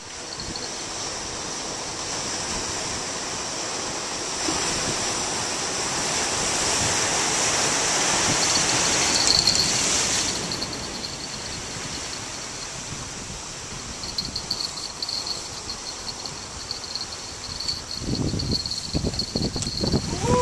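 Ocean surf washing against shoreline rocks, a steady rush that swells and eases, with gusts of wind buffeting the microphone near the end.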